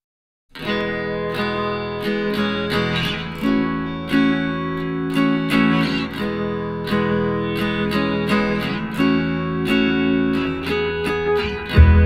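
Background music: acoustic guitar strumming chords in an even rhythm, starting about half a second in after silence, with a deep bass coming in near the end.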